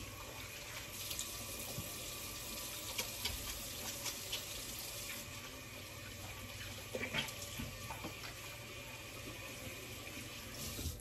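Kitchen sink faucet running steadily while hands are washed under it, with a few small splashes and knocks. The water is shut off near the end.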